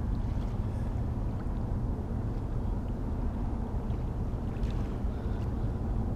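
Steady low rumble of a large cruise ship's engines heard across the river.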